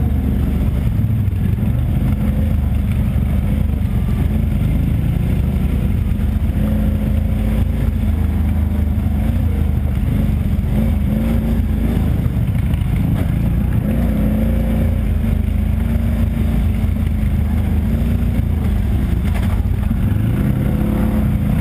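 ATV engine running steadily under throttle while riding a trail, its pitch rising and falling a little with the throttle.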